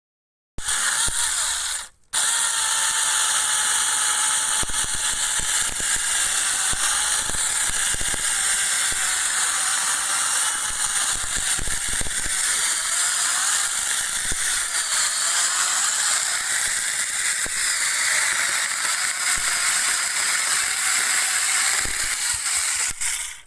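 CEEPUY 8-inch cordless battery mini chainsaw running, a high electric motor and chain whine. It starts about half a second in, cuts out briefly near two seconds, then runs steadily with a slightly wavering pitch until it stops near the end.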